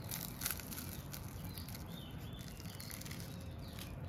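A few faint crackles of a crisp fried kachori's crust being broken open by hand, in the first second. Faint bird chirps come about halfway through.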